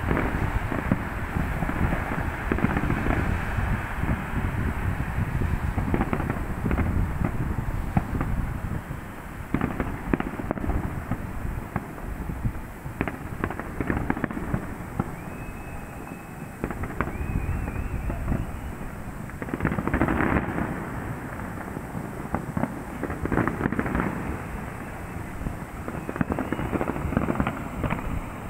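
Fireworks display going off in a continuous barrage of booms and crackles, with a louder flurry about two-thirds of the way through.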